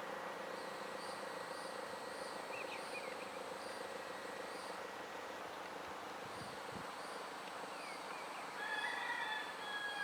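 A rooster crows once near the end, a call of about a second and a half, over steady outdoor background noise and a faint high chirping that pulses about three times a second.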